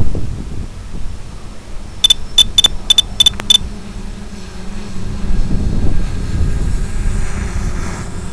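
Wind buffeting the microphone with a steady low rumble. About two seconds in comes a quick run of six short, high electronic beeps, about three a second, and one more beep near the end.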